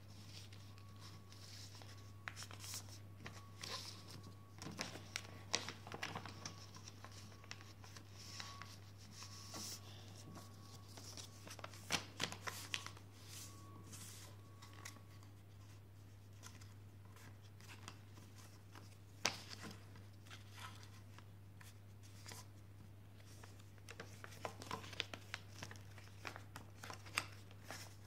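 A sheet of paper being folded and creased by hand: scattered crinkles, rustles and soft taps throughout, over a steady low hum.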